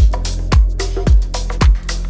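Background electronic music with a steady kick drum, a little under two beats a second, over a held bass line.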